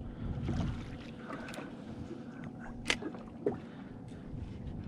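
Quiet ambience aboard a drifting fishing boat: a low, steady wash of water and wind noise, with two short sharp clicks about three seconds in, half a second apart.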